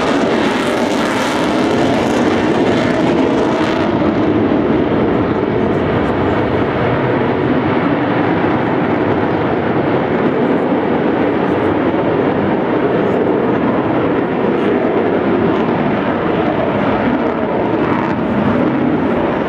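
Avro Vulcan bomber's four Rolls-Royce Olympus turbojets, a loud steady jet noise as the aircraft flies a display pass, with a higher hiss that drops away about four seconds in.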